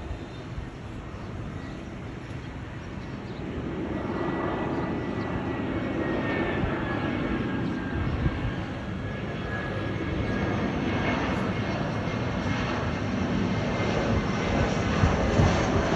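Airbus A320's CFM56 turbofan jet engines running, a steady roar that grows louder, with a faint high whine that slides slightly down in pitch partway through.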